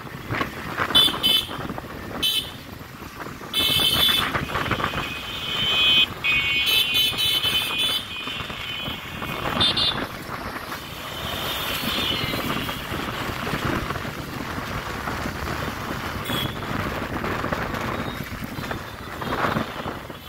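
Busy road traffic: vehicle horns tooting again and again, some short and some held for about a second, over a continuous rumble of engines and tyres.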